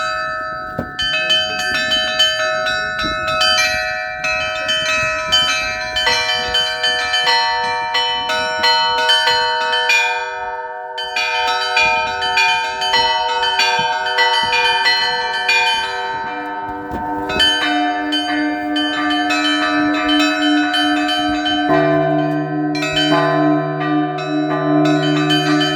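Russian Orthodox church bells rung in a zvon: quick, dense patterns on the small high bells over steadily repeated middle bells. A deeper bell joins about sixteen seconds in, and a large low bell enters near the end with a long hum.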